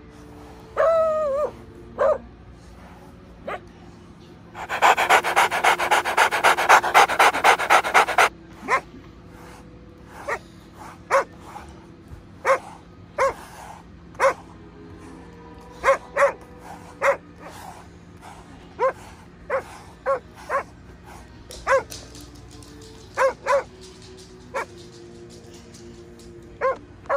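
Shiba Inu–Labrador mix dog panting rapidly for about three seconds, then a string of short, sharp sounds spaced about a second apart.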